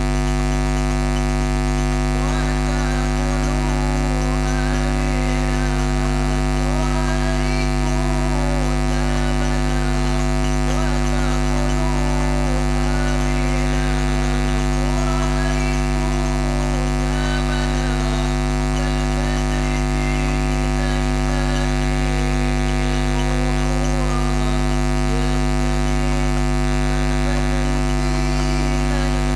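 Loud, steady electrical mains hum with a buzz of many unchanging overtones on the sound system's mixer feed. A faint, wavering sung melody drifts beneath it.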